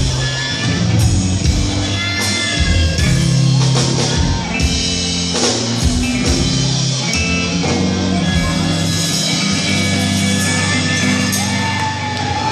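Live rock band playing a song, with drum hits over sustained bass notes and guitar, and a voice singing or shouting at times.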